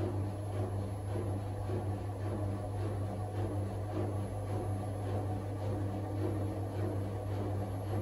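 Super General front-loading washing machine running its drum-cleaning cycle: a steady low motor hum with faint irregular swishes and ticks from the drum.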